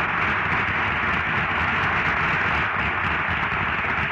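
Studio audience applause, a steady dense patter of many hands clapping, greeting the guest star's return to the microphone.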